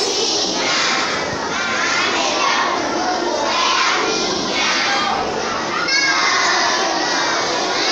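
A large group of children shouting and cheering together, many voices overlapping in surges about once a second.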